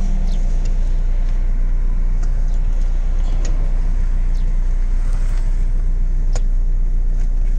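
Steady low outdoor rumble, with a few faint ticks and one sharper click near the end.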